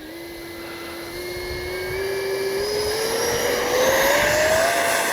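Electric ducted fan of a Freewing BAE Hawk T1 70mm RC jet, a whine climbing steadily in pitch and getting louder as the throttle is pushed up for the takeoff run.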